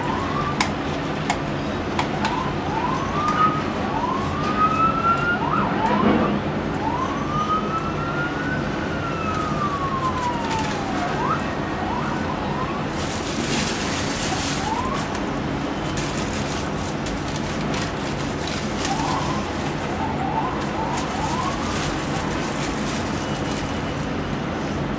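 Emergency-vehicle siren yelping in short rising sweeps, then one long rise and fall, with a few more quick yelps later. Underneath, a steady diesel engine hum from the excavator and site machinery.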